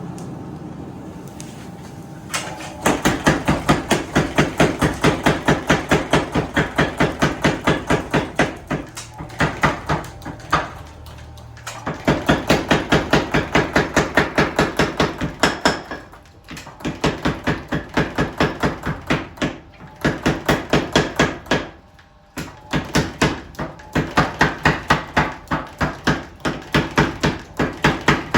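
Hammer forging steel for a Japanese sword: rapid, even blows, about four or five a second, in several long runs broken by short pauses.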